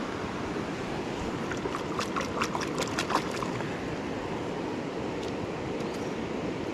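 Steady rushing of river water, with a quick run of sharp clicks or splashes from about one and a half to three and a half seconds in.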